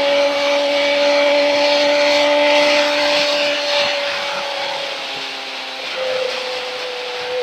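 Kawasaki ZX-25R's inline-four engine running at high, steady revs under way, with wind rushing over the helmet microphone. The engine note eases a little lower about four to six seconds in.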